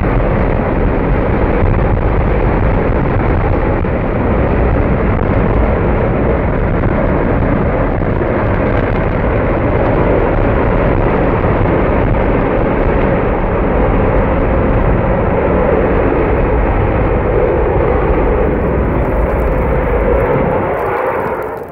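A missile first-stage rocket motor firing in a static test: a loud, steady roar that falls away near the end as the burn ends.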